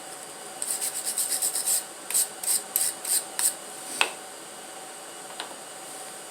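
Hand scrubbing at a part in quick rasping strokes: a fast run of about eight, then five slower ones. A sharp click comes about four seconds in.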